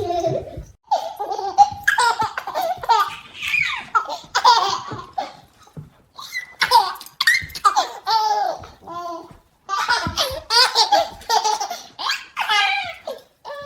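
Baby laughing hard in repeated high-pitched bursts of giggles and squeals, with brief pauses about six and nine seconds in.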